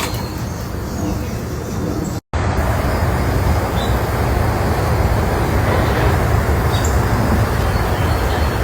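Steady, loud low rumbling noise of the vehicle or traffic kind, broken by a short dropout about two seconds in.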